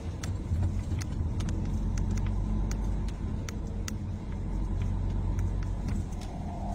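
Steady low rumble of a car's engine and road noise heard from inside the cabin, with scattered small clicks and rattles. A steady higher hum joins near the end.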